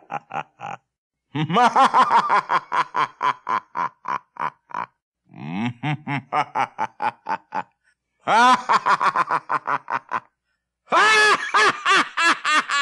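A man's theatrical ghost laugh, performed by a voice actor: four long runs of quick, even "ha" pulses, about eight a second, each run trailing off before the next begins after a short gap.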